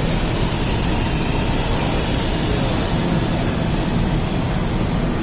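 Steady rushing noise with a low rumble underneath, even throughout, like the air handling of a large exhibition hall.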